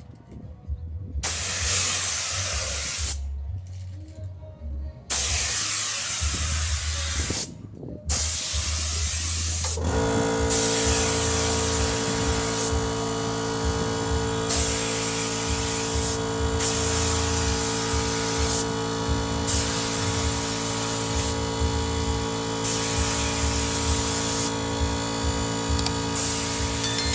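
Compressed air blasting out in bursts of about two seconds with short gaps. About ten seconds in, the 24-litre Motomil air compressor's motor starts and runs with a steady hum, while the air blasts go on over it.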